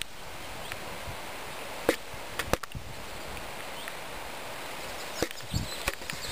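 Steady outdoor hiss with a handful of sharp clicks and knocks from a handheld camera being moved, about two seconds in, again half a second later, and twice more near the end.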